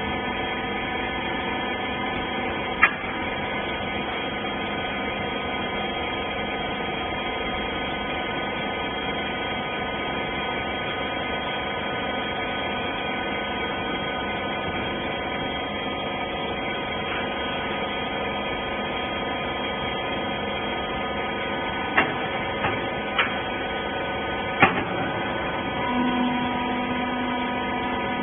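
Hydraulic used-clothes baler's power unit running with a steady hum. There is a sharp click about three seconds in, a few more clicks near the end, and a low steady tone that joins shortly before the end.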